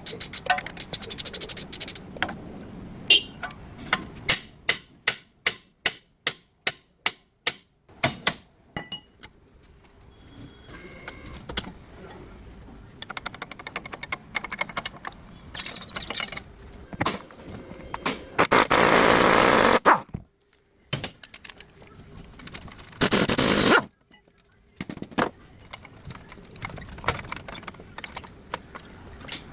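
Metal clicks, clanks and scrapes of hand tools working on a vehicle's front suspension, with a rapid run of sharp clicks early on. Two loud bursts of noise about a second long come roughly two thirds of the way through.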